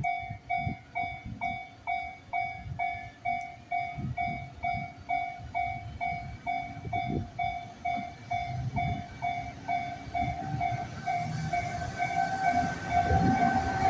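Japanese railway level-crossing alarm ringing its electronic bell steadily, about two rings a second. A second, higher tone joins in about eleven seconds in, and a low rumble grows louder near the end as a train approaches.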